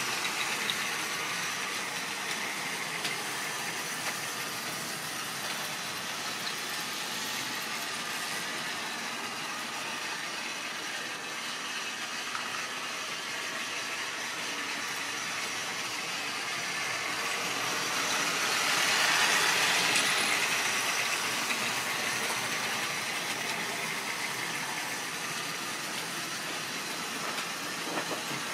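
Model railway train running on the layout: a steady rolling rattle of small wheels on the track and the whir of the locomotive's electric motor. It swells louder as the train passes close by, about twenty seconds in, then settles back.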